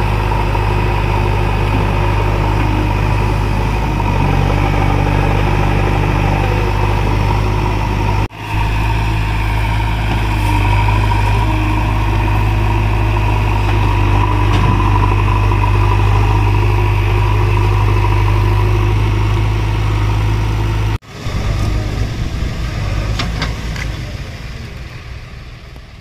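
JCB 3DX backhoe loader's diesel engine running steadily while the machine works through deep mud. The sound breaks off sharply twice and fades out near the end.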